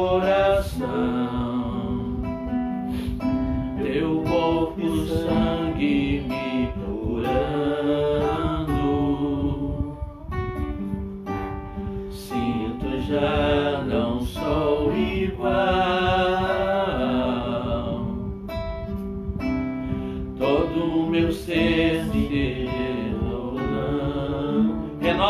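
Acoustic guitar strumming chords, accompanying a man singing a Portuguese-language Catholic worship song.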